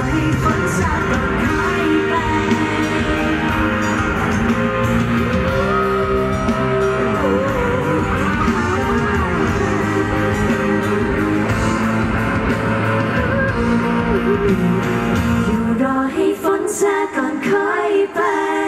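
Live pop-rock band with guitar, bass and drums backing a woman singing into a handheld microphone. About three seconds before the end the drums and bass drop out, leaving the voice with little backing.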